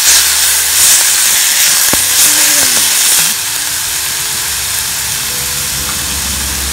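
Chicken and vegetables sizzling and steaming in a hot pot as they stir-fry, a loud steady hiss that drops a little in level about three seconds in.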